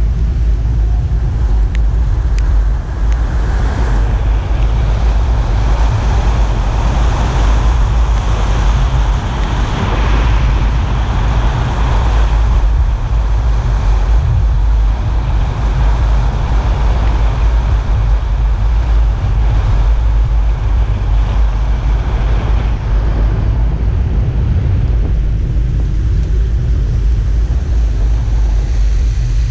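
Car driving on a wet road: a steady low rumble of wind buffeting the microphone and road noise, with a hiss of tyres on wet tarmac that eases a little near the end.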